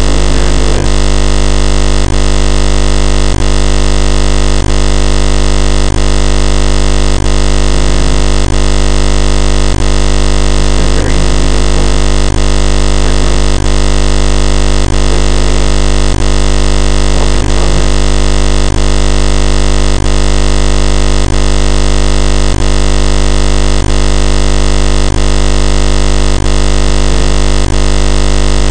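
Loud, unchanging electronic buzz over a low hum, with a faint click repeating about every two-thirds of a second.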